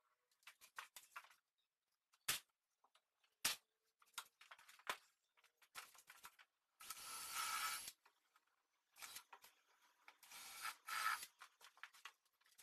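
Workshop handling sounds from a pine drawer box being assembled: two sharp wooden knocks about two and three and a half seconds in, scattered scraping and rubbing, and two rasping bursts of about a second each near the middle and towards the end.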